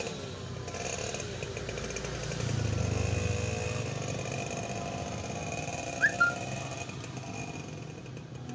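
A passing motor vehicle's engine, a low rumble that swells about two to four seconds in and then fades, over a steady background hum. Two short, sharp high chirps come about six seconds in.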